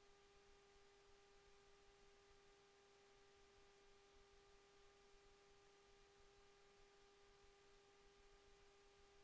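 Near silence: room tone with a faint, steady hum of one even pitch.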